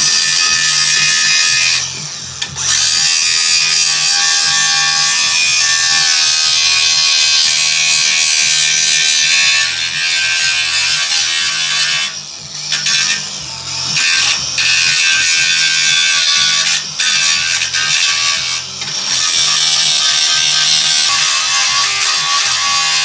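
Cordless angle grinder with a cutting wheel running and cutting into metal, a loud high whine that eases off briefly several times before biting in again.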